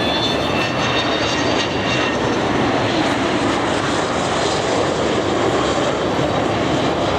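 Engine noise from a Boeing 727 airliner's three Pratt & Whitney JT8D turbofans as it flies a display pass. It is a steady, loud, rushing noise, with a faint high whine that fades out about two seconds in.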